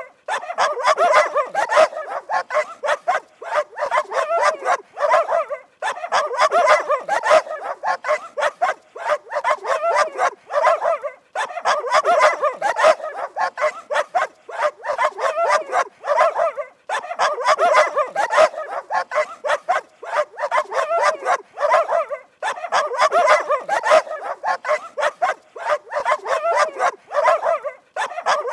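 Dog barking rapidly and continuously, several sharp barks a second, in runs broken by short pauses about every five and a half seconds.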